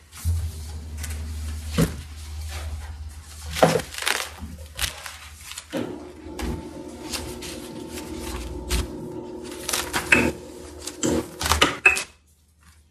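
Papers and a folder being handled and set down on a lectern, a series of sharp knocks and paper rustles picked up close by the lectern microphone, with a steady hum under much of it.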